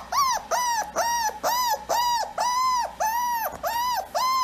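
A puppy crying: about ten high whimpering cries in a row, two or three a second, each rising and falling in pitch. It is a recording played from a phone to draw a dog's reaction.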